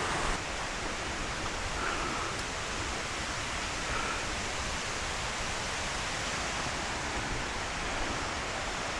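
Steady rushing of water from a cascading jungle waterfall, an even hiss with no rhythm.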